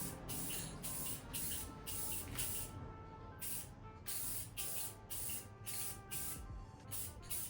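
Spray paint hissing onto a bike frame in a steady run of short passes, roughly two bursts a second with brief gaps between them.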